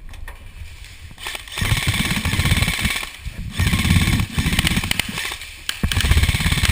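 Airsoft electric rifle firing full-auto: about four bursts of rapid, evenly spaced shots, each a second or so long with short breaks between, the first starting about a second and a half in.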